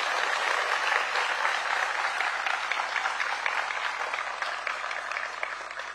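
A large audience applauding, a dense patter of many hands clapping that tapers off near the end.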